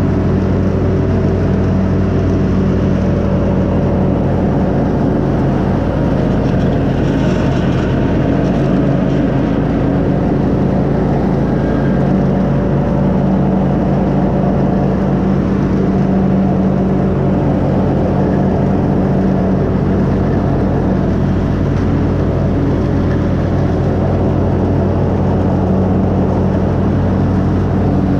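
Riding lawn mower engine running steadily while mowing grass, a constant even hum with no change in speed.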